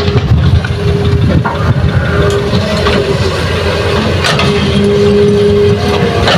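Hitachi hydraulic excavator's diesel engine working under load as the machine swings and digs, with a humming tone that comes and goes as the hydraulics work. A few sharp knocks of the bucket and rock stand out.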